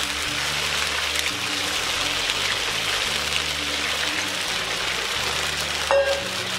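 Water poured into a hot cast-iron kazan of fried quail and corn, hissing and sizzling as it hits the hot fat. A short metallic clank about six seconds in, as the pouring stops.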